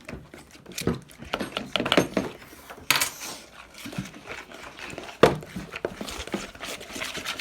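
Spoons clinking and scraping against bowls as glue and baking soda are stirred together, an uneven run of short knocks and clicks with a sharper knock about five seconds in.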